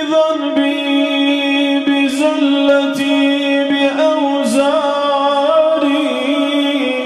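A man singing solo and unaccompanied: a long, held, ornamented line from an Arabic devotional ode in praise of the Prophet (madih), the pitch turning in small melismatic flourishes about two and four seconds in.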